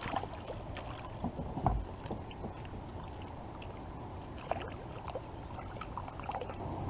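Small knocks and clicks of paddle, rod and landing net against a kayak hull while a fish is being landed, with one louder low thump a little under two seconds in.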